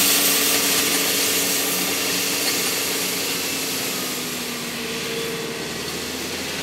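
Compact tractor's engine running steadily as it pulls a turf-grooming implement that rakes dead grass out of the lawn. The sound slowly fades as the tractor moves away.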